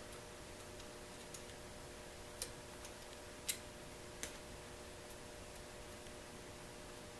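Faint, sharp clicks, about four of them a second or so apart, from a lock pick working the pin tumblers of a mortise lock cylinder, over a faint steady hum.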